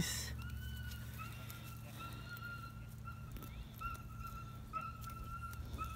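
Newborn puppies whining: a string of thin, high-pitched cries, some short and some drawn out to about a second, one after another.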